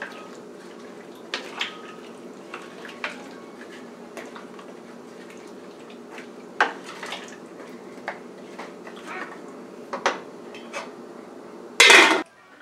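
Wooden spoon stirring vegetable chunks in water in a stainless-steel stockpot, with scattered knocks against the pot over a steady low hum. Near the end the metal lid is set on the pot with a loud clatter.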